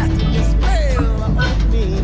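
Background music: a song with a steady beat and a melodic line that slides down in pitch partway through.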